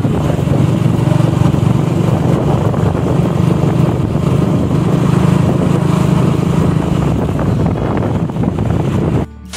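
Motorbike engine running steadily at road speed, heard from on the bike, with wind noise on the microphone. It cuts off suddenly near the end.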